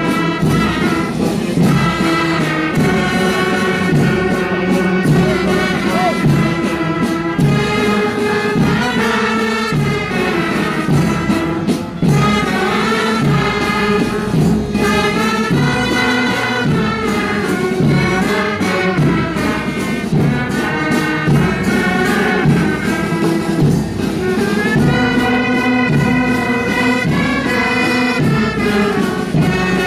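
Background music: an orchestral patriotic piece led by brass, over a steady beat.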